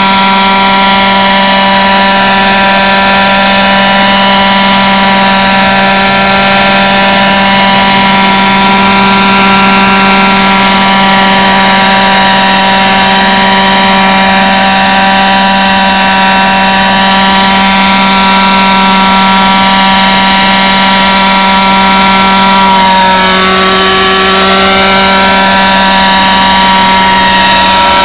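Large-scale Vario Schweizer radio-controlled model helicopter, its engine and rotor running with a loud, even drone while it hovers low. A little before the end the pitch dips and shifts for a couple of seconds, then settles again.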